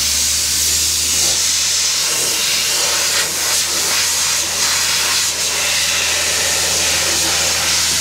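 Compressed air hissing steadily from an air hose, with an engine idling low underneath.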